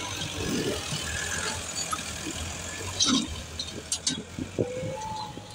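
Massey Ferguson 375 tractor's diesel engine running steadily while it pulls a disc harrow through the soil, with a few sharp knocks about three and four seconds in.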